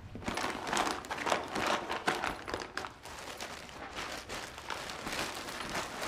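Rustling and crinkling of a fabric backpack and clothes being handled and stuffed in while packing, in an irregular run of handling noises.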